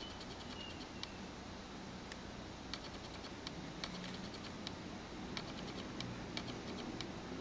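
Faint light clicks and ticks, some in quick little runs of several per second, as a finger taps and swipes across a smartphone touchscreen, over a low steady hum.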